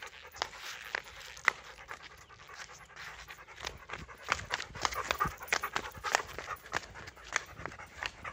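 Black Labrador panting, with a string of short sharp clicks that come thicker from about halfway through.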